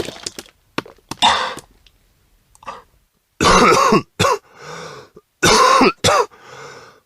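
A person retching and gagging in separate heaves, as in vomiting: a weaker heave about a second in, then two loud gagging heaves around the middle and near the end, each followed by a quieter groan, with short clicks between.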